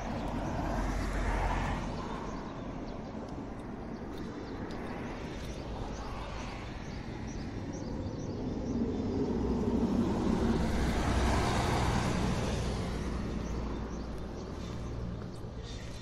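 Road traffic passing on the adjacent road: one vehicle goes by about a second in, and a longer, louder one swells up from about eight seconds in and fades away after about thirteen.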